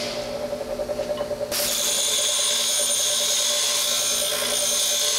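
Baldor bench grinder running with a steady motor hum. About a second and a half in, a rusty steel exhaust flange is pressed against the grinding wheel, and the harsh noise of metal being ground joins the hum and keeps on.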